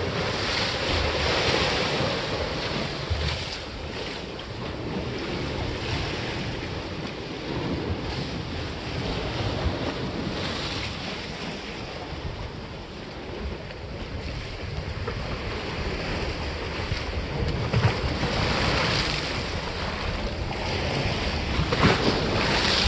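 Sea waves washing against a granite breakwater, swelling and falling away several times, with wind buffeting the microphone in a steady low rumble.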